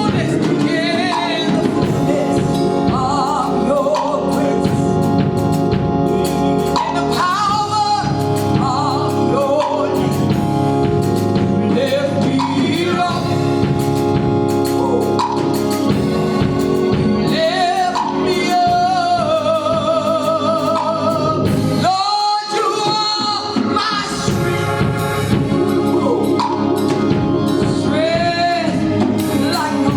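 Gospel music: a singer with wavering, held notes over steady instrumental accompaniment.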